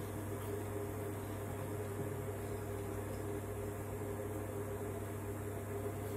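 A running appliance giving a steady electrical hum with an even fan-like hiss.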